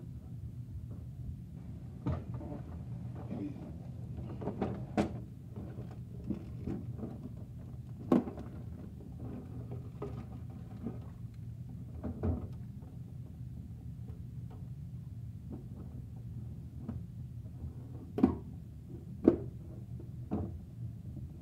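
Bruder plastic toy garbage truck being handled and tipped, its load of cardboard scraps and small plastic pieces dumped onto a carpet: scattered short knocks and clatters, a few sharper ones near the end, over a steady low hum.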